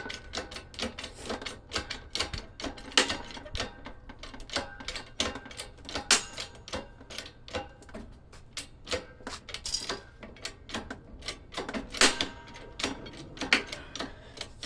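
Rapid, irregular clicking and knocking of the coffee maker's plastic casing as it is worked and pried apart, with a few louder cracks or knocks among the clicks.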